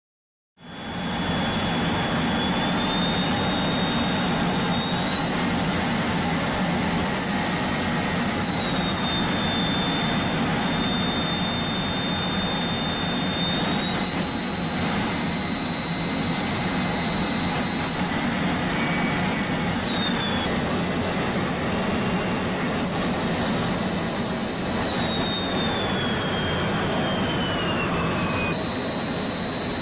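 Jet engine running, a steady dense noise with a high whine whose pitch wanders and falls away twice in the second half. It cuts in abruptly about half a second in.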